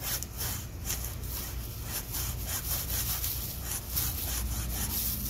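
Large rusty knife sawing back and forth through the stem of a dead palm frond, about two to three strokes a second. The blade is dull and needs sharpening, so it hacks at the fibrous stem rather than slicing cleanly.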